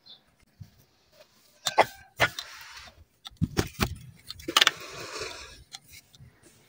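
A series of sharp knocks and clatters, with two short stretches of scraping or rustling between them.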